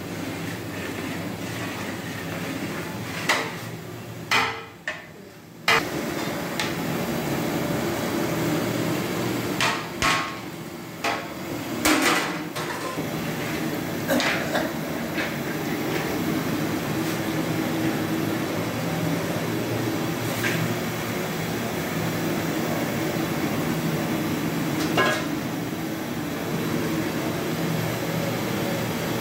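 A long metal ladle stirring thick meat curry in a large metal cooking pot (degh): scraping, with sharp clanks against the pot several times, most of them in the first half, over a steady low hum.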